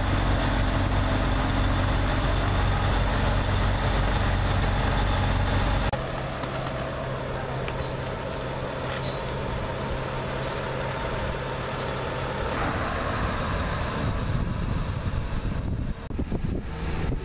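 Pierce fire engines' diesel engines idling: a steady low rumble, loud for the first six seconds, then a quieter steady engine hum after a change of shot.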